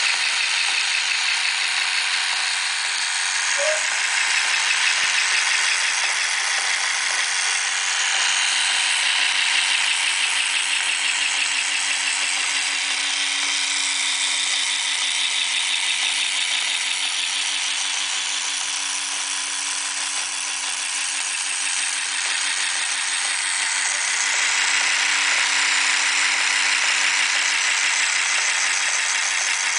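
Motor-driven wooden ball staircase running: a small battery-powered DC motor turning plastic reduction gears and a wooden step mechanism, with a steady, fast, continuous rattle over an even hum.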